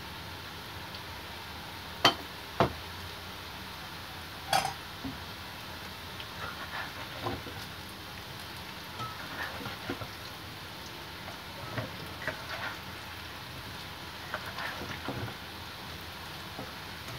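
Potato fries sizzling steadily in hot oil in a wok. Two sharp knocks come about two seconds in, another a couple of seconds later, and then a ladle scrapes and knocks against the wok as the fries are turned.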